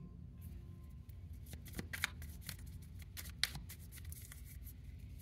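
A deck of oracle cards being handled and shuffled, giving faint, irregular card flicks and clicks, a couple of them louder.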